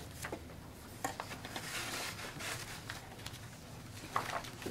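Quiet meeting-room tone with scattered faint rustles and light clicks of papers and small objects being handled on a conference table.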